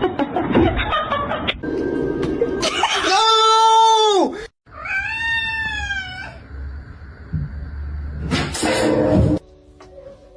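Domestic cats meowing: a long drawn-out yowl held for about two seconds, then after a brief break a second, higher meow that rises and falls. A short noisy burst comes near the end.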